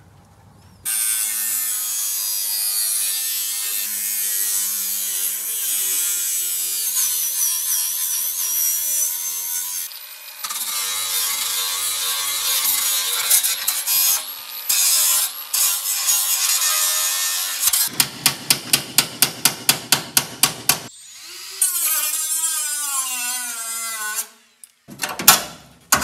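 Angle grinder cutting and grinding rusted sheet-steel bodywork, a loud steady high grinding with a short break about ten seconds in. Near the end comes a quick run of about a dozen sharp knocks, around four a second, then a tool's whine rising and falling in pitch.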